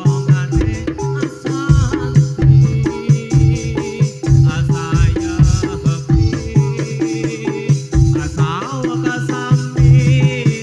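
Topeng Ireng dance accompaniment music: drum strokes about once a second over steady held low tones, with a sliding melody line above.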